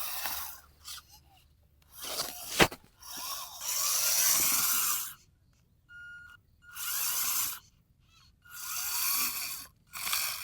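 RC toy bulldozer working: short runs of its small electric motor whirring together with scraping dirt, starting and stopping about six times, with a sharp click about two and a half seconds in.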